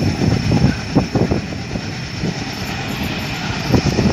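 Indian Railways diesel locomotive hauling a passenger train on its approach, a steady low rumble mixed with irregular low thumps. A faint steady high tone sits underneath.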